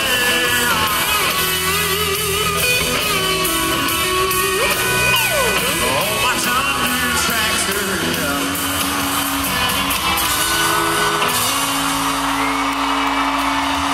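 Live country band with guitar and singing, heard from the stands and echoing through a large arena. Near the end the held notes ring out while crowd cheering swells as the song finishes.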